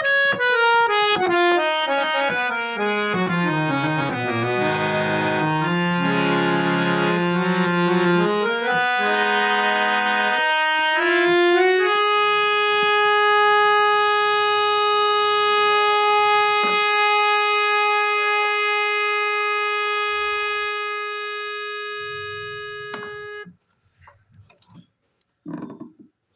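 Two-line folding harmonium with Palitana reeds playing: a descending run of notes into low chords, then a single chord held for about ten seconds before it stops abruptly. A few faint knocks follow near the end.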